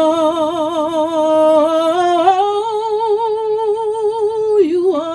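A woman singing solo into a microphone, holding a long sung "oh" with a wide vibrato. The note steps up in pitch about two seconds in and breaks off near the end with a short falling turn.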